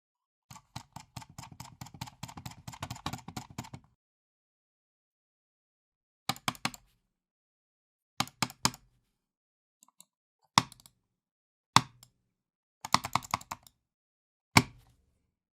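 Computer mouse clicked angrily: a rapid run of clicks for about three seconds, then short bursts of three or four clicks and several single hard clicks, separated by silence.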